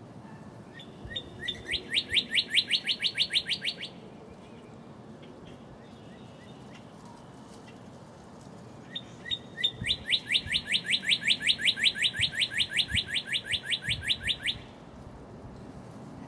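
Male northern cardinal singing two songs, each opening with a few spaced notes that build into a fast run of repeated clear, sharp notes. The first song lasts about three seconds; the second starts about nine seconds in and runs longer, about five seconds.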